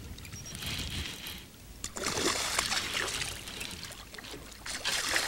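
Hooked black bass splashing and thrashing at the water's surface beside the boat, in three spells of splashing.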